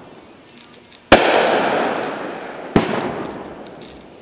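Forward's Walloping Wolverine 500-gram firework cake firing: two sharp bangs about a second and a half apart, each trailing off over a second or more.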